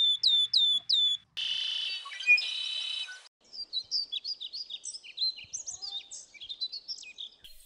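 Birds chirping and singing in three abruptly cut segments: first a short, falling call repeated about three times a second, then a held, buzzy call for about two seconds, then a run of quick high twitters.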